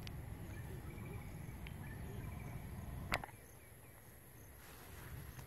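Outdoor ambience with a steady high insect whine, a low rumble and faint high chirps. A sharp click about three seconds in cuts the rumble away.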